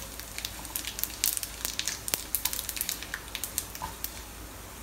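Tadka of whole cumin seeds, curry leaves, chopped garlic and whole dried red chillies sizzling in hot oil in a nonstick pan, with frequent sharp, irregular crackles, while being stirred with a silicone spatula.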